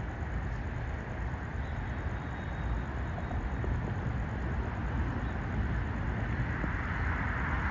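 Brightline passenger train approaching: a steady low rumble and noise slowly growing louder.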